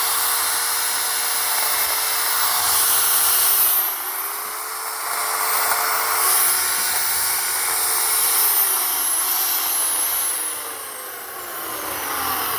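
WEN 16-inch electric chainsaw running and cutting dead pine limbs. Its motor whine dips in pitch under load about four seconds in. From about eight seconds in, it falls steadily in pitch as the motor winds down.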